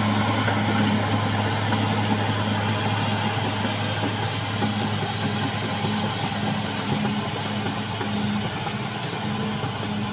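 CAT D6R XL bulldozer's diesel engine running steadily: a low drone with a regular pulsing tone above it.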